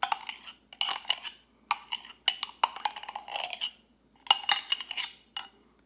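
Metal spoon scraping and clinking against the inside of a cut-glass mason jar while digging out thick frothed cream, in five or so short runs of scrapes and taps with brief pauses between, some with a light glassy ring.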